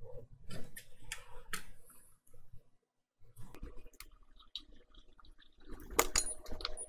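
Small clicks and taps of hand tools and a flux syringe being handled on a silicone repair mat, with a sharper knock about six seconds in and a short quiet spell midway.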